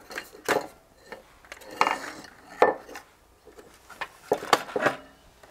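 Irregular clicks, taps and light knocks as a transistor radio's circuit board and its parts are handled and shifted on a wooden workbench.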